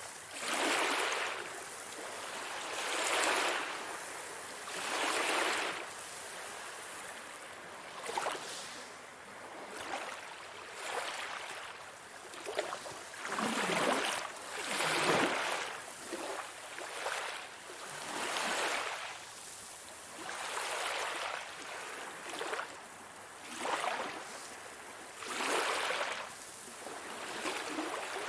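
Sea waves washing in one after another, each a rising and falling rush of hiss, about one every one to two seconds.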